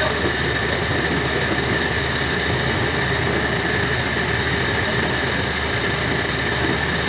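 Metal lathe running steadily, with a constant high whine over a low hum.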